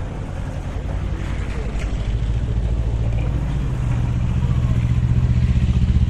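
A motor vehicle's engine running at steady pitch with a fast, even pulse, growing louder from about two seconds in.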